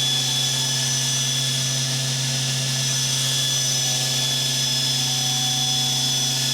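Cincinnati Milacron Arrow 500 vertical machining center's spindle running steadily at its top speed of 8,000 RPM: a constant hum with a steady high whine above it.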